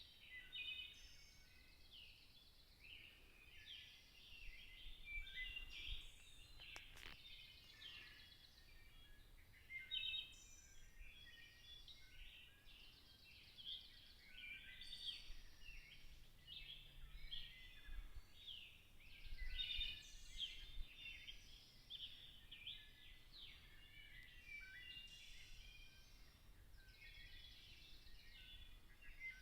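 Faint chorus of many songbirds singing and chirping at once: dense, overlapping short high calls and trills, a morning dawn chorus.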